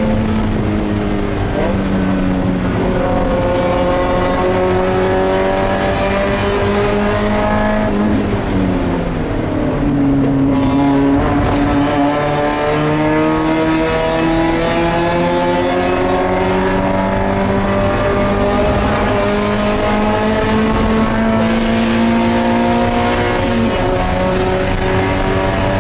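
Mazda MX-5 Spec Miata race car's four-cylinder engine heard from inside the cockpit at racing speed, its pitch climbing slowly under power. The pitch falls steeply as the car slows about nine seconds in, then rises through a long pull, with a short drop near the end.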